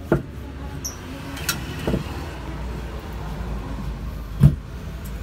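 Workshop handling sounds: a few sharp knocks and clinks, the loudest about four and a half seconds in, over a steady low rumble.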